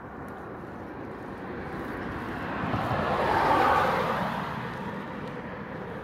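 A passing road vehicle: its noise swells steadily, peaks about three and a half seconds in, then fades away.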